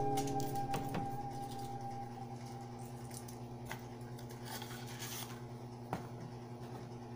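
Foil-wrapped cheese block and its cardboard box being handled: faint rustling of the foil and packaging, with a few light clicks.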